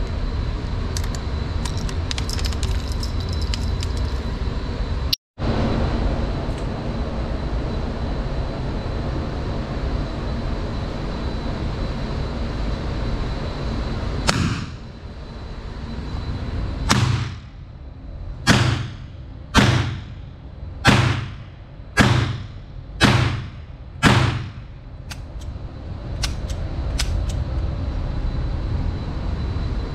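Seven .22LR handgun shots, fired about one a second, each a sharp crack that rings briefly in the indoor range. Under them is a steady low rumble.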